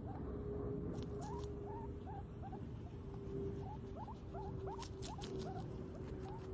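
Guinea pig giving short rising squeaks, about two a second, over a steady low hum, with a few faint clicks around a second in and again near the end.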